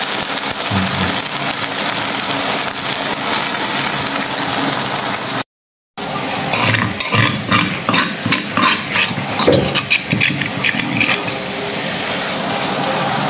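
Crickets frying in oil in a wok, a steady sizzle as they are stirred with a metal spatula. After a brief dropout about halfway, irregular scrapes and knocks of utensils against the wok and stone mortar join the sizzle as chili seasoning is added and stirred in.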